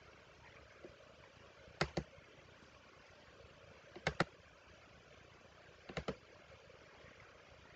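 Computer mouse clicking: three double-clicks, about two seconds apart, over faint steady room noise.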